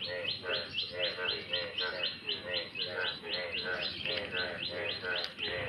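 A bird calling in a fast, even series of short rising notes, about five a second, repeated without a break.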